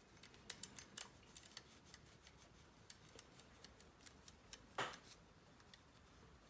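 Faint, scattered small clicks and ticks from a metal sonic screwdriver replica being handled and polished around its claws, with one brief, louder rub about five seconds in.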